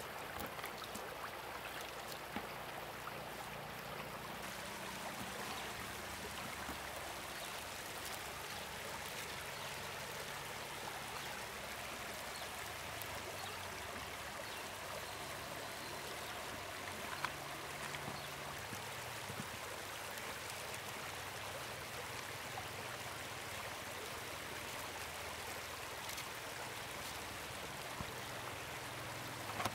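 Steady rush of water flowing in a shallow stream, with one sharp tap about halfway through.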